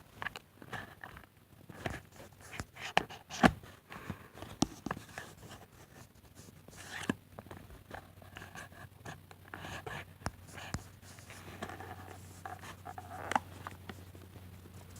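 Irregular scrapes, rustles and clicks of a cardboard-and-plastic toy box being handled while the ties holding the toy inside are cut. The sharpest clicks come about three seconds in.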